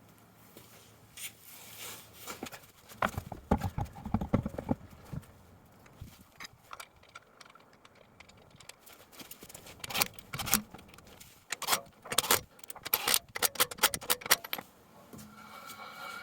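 Metal clinks, knocks and rattles of a car wheel being put back onto the hub and its wheel bolts handled, in scattered clusters, busiest about three to five seconds in and again from about ten to fourteen seconds in.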